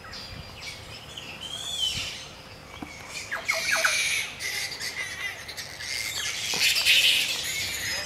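A roosting colony of flying foxes (fruit bats) screeching with harsh, overlapping calls. The calls swell louder about halfway through and again near the end.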